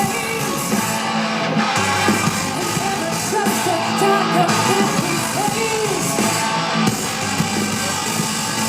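Live rock band through a festival PA: distorted electric guitar over a heavy beat, with singing, loud and steady.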